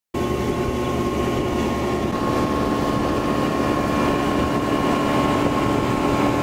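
Mercury OptiMax two-stroke outboard motor running steadily at speed as the bass boat planes across the lake, with the rush of wind and water against the hull.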